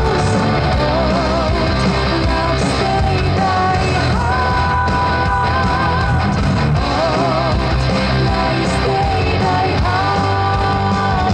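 Rock music with a singing voice, played loud through a repaired Orion HS500 speaker as a test. The singer's long held notes waver over strong, steady bass.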